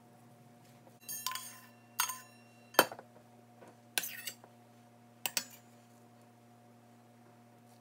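A metal spoon clinking and scraping against a stainless steel mixing bowl as the last of the mixed rice is scooped out. There are five sharp clinks over about four seconds, each with a short ring, and the third is the loudest.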